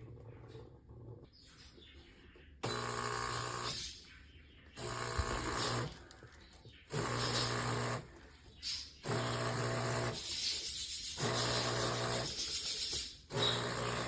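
Espresso machine buzzing in about six separate bursts of one to two seconds each, each starting and stopping abruptly.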